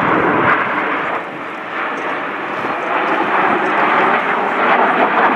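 Jet noise from a close formation of Aermacchi MB-339 jet trainers with single Rolls-Royce Viper turbojets, passing overhead as a steady, dense rush. It eases off slightly about a second in, then builds again.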